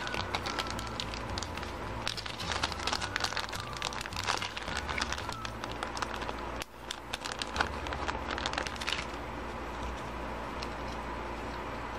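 Thin clear plastic zip bag crinkling and rustling as it is pulled open and handled, dense crackles for about nine seconds, then quieter.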